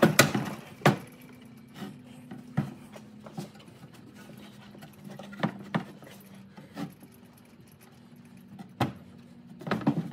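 Scattered metal clicks and knocks, about eight sharp ones at irregular spacing with a cluster near the end, from the rear quarter window and regulator assembly of a 1964–66 Thunderbird as its window rollers are worked into their tracks. A faint steady hum runs underneath.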